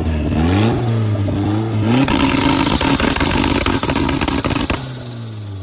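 A modified car engine revving, its pitch rising and falling, with rapid popping and crackling from the exhaust through the middle. Near the end the engine drops back down and gets quieter.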